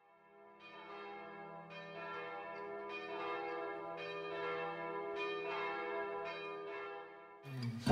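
Church bell ringing, struck about once a second, each stroke ringing on into the next. An acoustic guitar starts strumming near the end.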